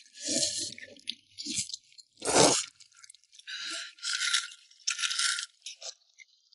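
Close-up eating of pork-trotter noodles: chewing, with a run of short noisy slurps, the loudest a little over two seconds in.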